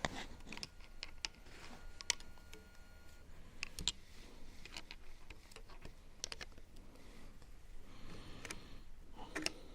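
Scattered light clicks and taps, a dozen or so at uneven spacing, of small parts being handled.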